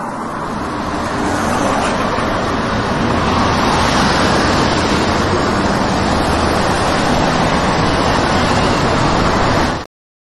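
Steady roar of road traffic on a city highway, swelling over the first few seconds, then cutting off abruptly near the end.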